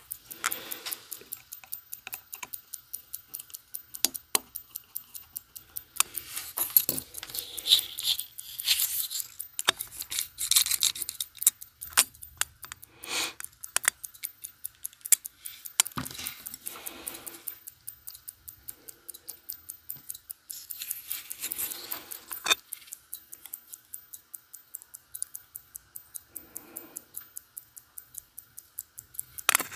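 Irregular sharp clicks and taps of steel tweezers and pegwood working on the discs and plate of a small watch movement, with a faint steady hum of a clothes dryer running under them.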